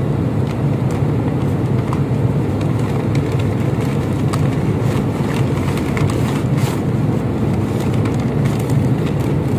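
Steady low drone of an airliner cabin, with the crinkling and rustling of a crumpled paper takeout bag being opened and handled.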